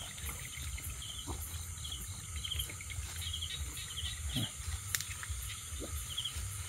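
Night insects chirping in short repeated trills, about one or two a second, over a steady high drone. Under them is a low, uneven rustle of someone pushing through bushes.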